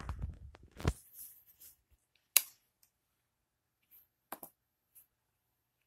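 Low rumble of a phone being handled, then a few sharp isolated clicks: a strong one about a second in, the loudest about two and a half seconds in, and three fainter ones near the end.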